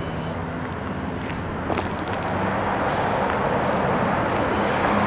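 Road traffic noise: a steady rush of passing vehicles with a low engine hum, slowly growing louder, and a single short click a little before the middle.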